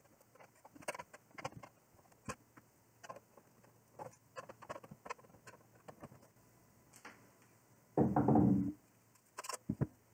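Screwdriver working small screws out of the metal outer cage of an HP SAS drive cage: a string of light clicks and ticks. About eight seconds in, a louder metal clatter lasting under a second as the cage comes off, then a few knocks as it is set down.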